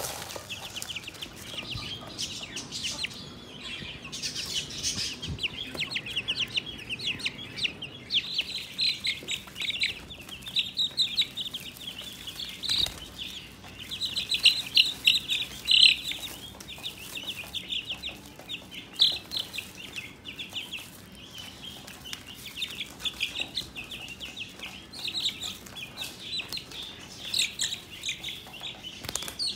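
A group of young broiler chicks peeping: many short, high cheeps overlapping without a break, busiest and loudest about halfway through.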